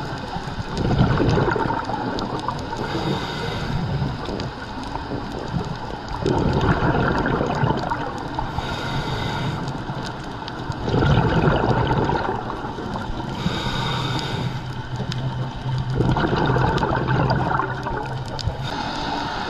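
Underwater recording of scuba breathing through a regulator: a loud bubbling rush of exhaled air about every four to five seconds, with a fainter hiss between the surges.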